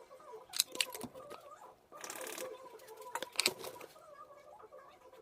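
Small clicks and clinks of jewelry pieces and packaging being handled, with a short rustle of packaging about two seconds in.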